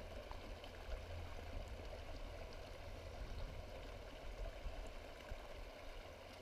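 Shallow stream running over rocks, a steady rushing of water, with a low rumble of wind on the microphone underneath.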